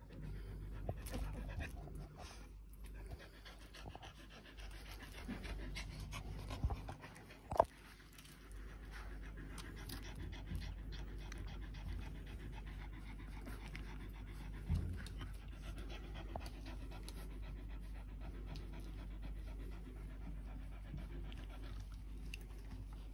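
Four-week-old Australian Shepherd puppies panting and scuffling as they play, with a couple of small knocks.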